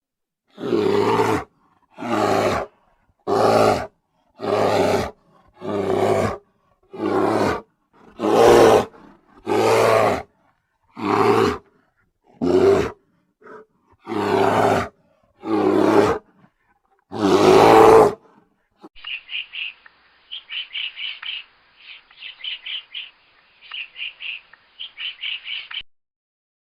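A large animal calling loudly about thirteen times in a row, each call under a second long and roughly a second and a half apart. About two-thirds of the way through, the calls stop and quieter, rapid high chirping of birds follows.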